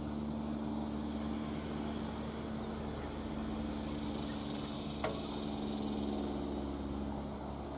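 Steady outdoor ambience: insects buzzing high over a low steady hum, with one sharp click about five seconds in.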